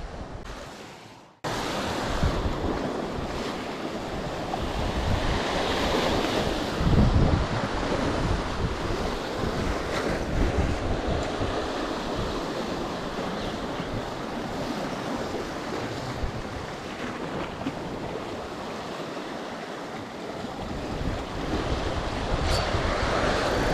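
Sea surf washing and breaking over a rocky shoreline, with wind buffeting the microphone. It starts suddenly about a second and a half in and then runs on steadily.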